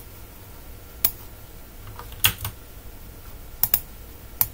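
Sharp clicks of computer input, keys or mouse buttons, at a desk: about five separate clicks over four seconds, two of them quick pairs, over a faint steady low hum.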